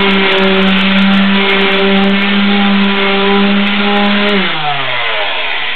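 Corded electric palm sander running steadily on the clamped ends of wooden boards, sanding them level with each other. About four and a half seconds in it is switched off and its hum falls in pitch as the motor spins down.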